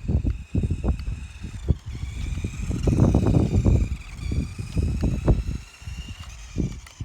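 Radio-controlled car's electric motor whining high, its pitch shifting a little with the throttle, over irregular low rumbling and knocks.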